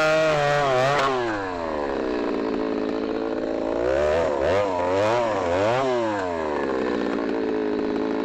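Ported Stihl MS310 chainsaw with an open Ironhorse-style muffler, loud and running at high revs, then dropping off throttle about a second in. Three quick blips of the throttle follow in the middle, and then it settles to a lower, steady idle.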